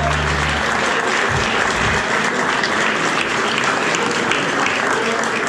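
Audience applauding at the end of a live rock song; the band's final held low note stops about half a second in.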